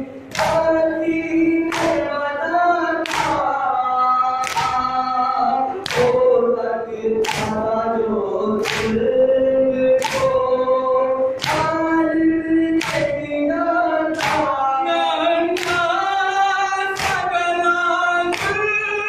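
Men's voices chanting a Shia nauha (Muharram lament) together, punctuated by sharp unison chest-beating strokes (matam) at an even beat of about one every 1.3 seconds.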